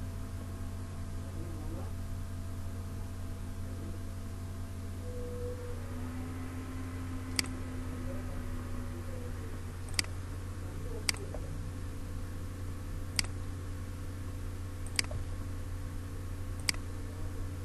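Computer mouse clicking, six sharp single clicks about one to two seconds apart in the second half, as points are picked while drawing lines in AutoCAD, over a steady low hum.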